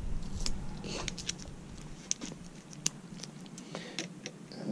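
Scattered small clicks and taps of hand tools and metal pump parts being handled, irregular and a second or so apart.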